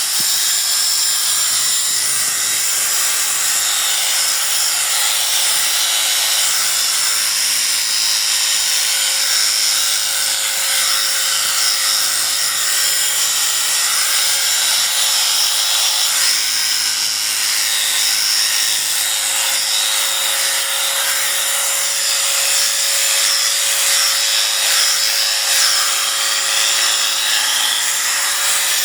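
Electric sheep shears running steadily: a constant high buzz with one steady hum tone underneath.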